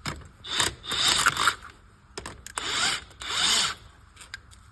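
A handheld power tool with a socket spins lug nuts off a car's rear wheel in several short bursts, each under a second long.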